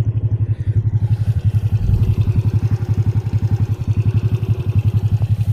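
Motorcycle engine running at low, steady speed with an even rapid pulse, carrying the bike along a rough unpaved farm track.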